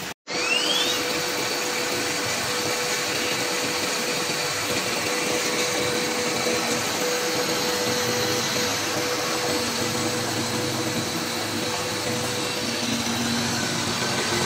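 CNC router with an aggregate head running: a steady rushing, whirring machine noise with a held whine. It is broken by a brief dropout near the start, followed by a short rising whine.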